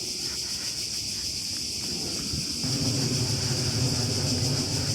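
A high, steady insect chorus buzzing without a break. About halfway through, a louder low drone with a steady pitch joins in and continues.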